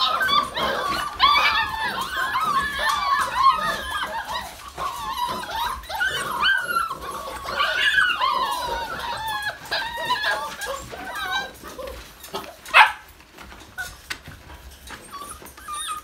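A litter of young Briard puppies whining and yipping together in many overlapping high-pitched calls. The calls thin out toward the end; one short, sharp, loud sound comes about thirteen seconds in, and after it the litter is mostly quiet.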